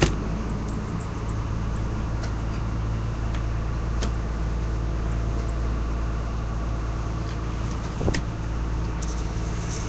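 Passenger boat's engine running steadily under way, a low, even drone heard from on board. A brief knock about eight seconds in.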